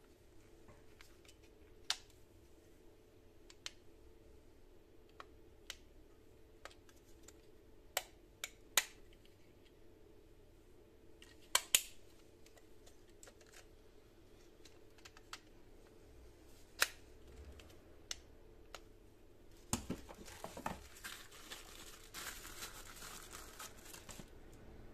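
Hands handling the plastic parts of a portable mesh nebulizer, with sharp clicks and taps here and there. Over the last few seconds, tissue-paper packaging crinkles.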